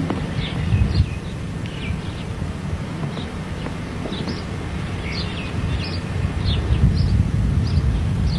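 Small birds chirping: short, falling chirps repeating every half second or so, over a steady low rumble.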